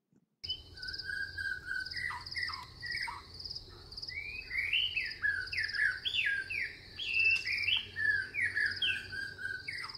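Birds singing in a garden, a mix of repeated whistled notes and quick downward slurs, over a steady high-pitched pulsing buzz.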